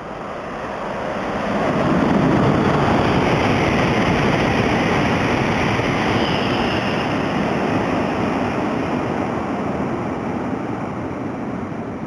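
E2 series Shinkansen passing at speed without stopping: a rush of wheel and wind noise that swells over about two seconds, holds, then fades away.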